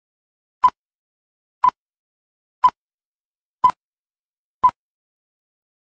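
Countdown-leader beeps: five short beeps at one steady pitch, one a second, one for each number of the countdown.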